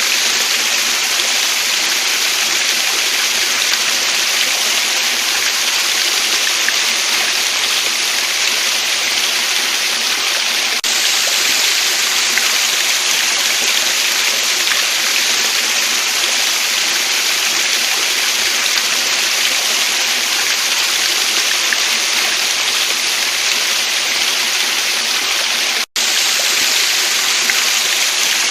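Waterfall and stream water rushing steadily, a constant even hiss of falling and flowing water. The sound cuts out for a split second near the end.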